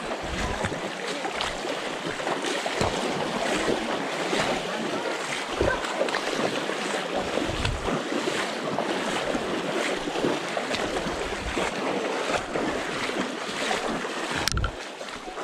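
Shallow river water rushing and splashing close by, with irregular splashes throughout and low gusts of wind buffeting the microphone. A sharp click comes about a second before the end.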